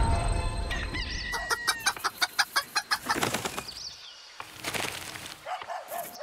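A heavy thud fades out at the start, then hens flap their wings in a rapid flurry of about five strokes a second with small clucks mixed in. A few short clucks come near the end.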